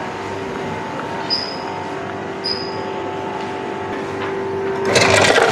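Steady hum of a fast-food restaurant's machinery with two short high beeps, then near the end a loud clattering rush as a self-serve soda fountain dispenses into a paper cup.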